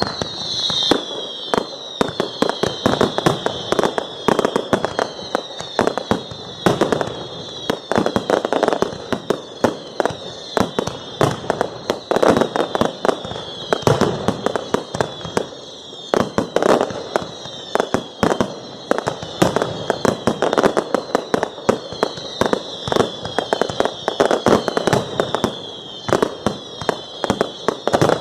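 Fireworks display: a dense barrage of sharp bangs and crackling explosions, several a second, with louder clusters. Behind it a high whistle falls in pitch over and over.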